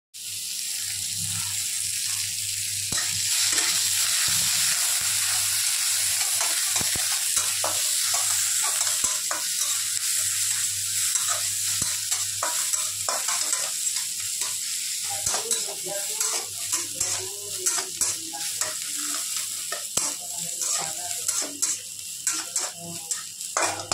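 Sliced onions sizzling as they fry in an aluminium wok, stirred with a metal spatula that scrapes and clicks against the pan. The sizzle eases in the second half while the spatula scrapes stand out more.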